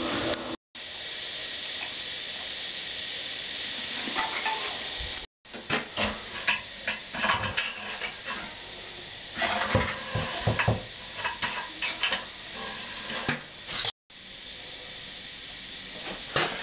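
Scattered clinks and knocks of a ceramic toilet cistern and its plastic fittings being handled and fitted onto the pan, between stretches of steady hiss.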